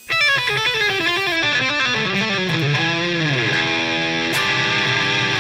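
Electric guitar intro music: a quick run of notes falling in pitch, then a bent note and a few held notes.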